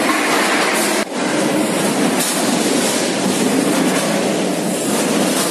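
Automatic chicken-leg packing line running, weigher and vertical bagging machine together, with a steady, dense mechanical noise. A brief dip in level about a second in.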